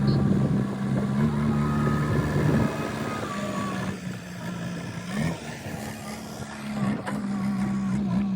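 A vehicle engine running steadily with a low hum. It grows quieter for a couple of seconds around the middle, then picks up again.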